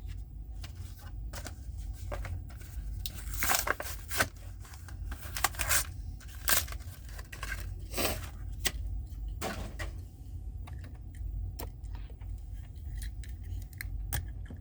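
A Hot Wheels blister card being torn open by hand: irregular crackling of the plastic blister and tearing of the cardboard, with scattered clicks, over a steady low hum.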